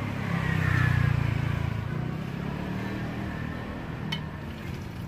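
A motor vehicle passing close by, its engine rumble swelling about a second in and then fading, with a falling whine as it goes. A short click comes near the end.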